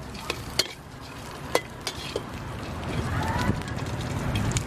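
Metal spatula scraping and clinking against a steel wok as chunks of pork are stir-fried, with sharp clinks in the first couple of seconds. Sizzling grows louder over the last second or two.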